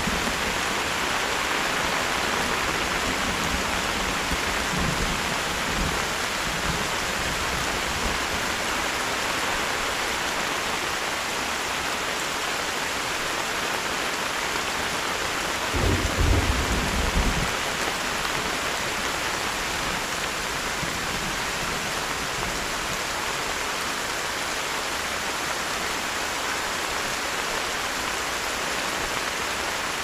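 Heavy rain falling steadily and evenly, with a brief low rumble about halfway through.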